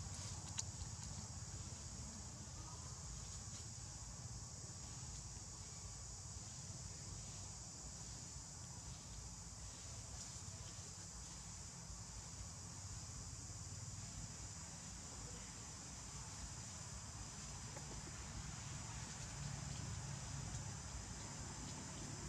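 Faint, steady high-pitched insect chorus over a low rumble, with a single sharp click about half a second in.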